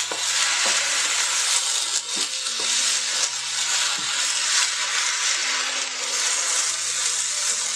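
Rice, cheese sauce and diced tomatoes sizzling in an electric skillet as a wooden spatula stirs through them, with irregular scrapes and light knocks of the spatula against the pan.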